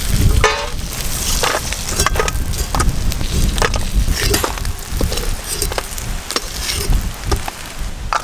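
Crabs frying in hot mustard oil in a metal wok, sizzling and crackling. A metal spatula scrapes and knocks irregularly against the wok and a steel bowl as the fried crabs are lifted out.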